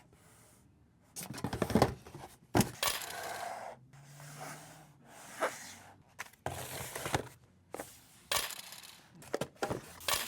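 Pokémon card booster packs and other items being handled and dropped into a box: an irregular run of rustles, taps and light knocks.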